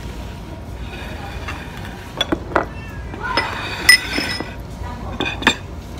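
Tableware clinking: chopsticks and a serving spoon knocking against ceramic plates and a rice bowl, a handful of sharp clinks from about two seconds in.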